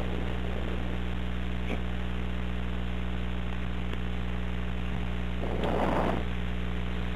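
Telephone line hum with steady hiss, heard over a recorded phone call. A short rustling swell comes about two thirds of the way through.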